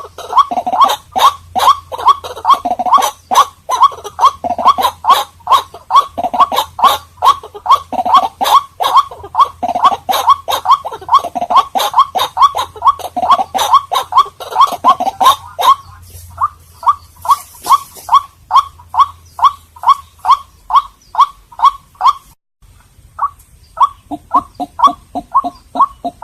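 White-breasted waterhen calling: a fast, steady series of repeated notes, denser and overlapping for the first half, then single notes at about three a second. The calls break off briefly near the end, then resume.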